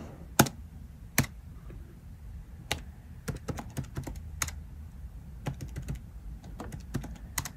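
Key presses on a Casio PB-300 programmable calculator's keyboard: irregular small clicks, some single and some in quick runs, as a BASIC command is typed in.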